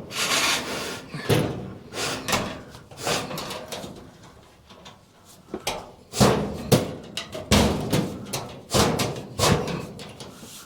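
Chimney brush on rods being pulled back through a sheet-metal stovepipe: irregular scraping strokes and knocks against the pipe, with a quieter spell near the middle.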